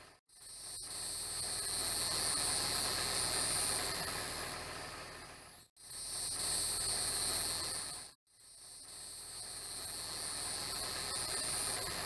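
Steady shrill chorus of insects, high-pitched and continuous over a hiss. It fades out to silence and swells back three times: just after the start, near six seconds and about eight seconds in.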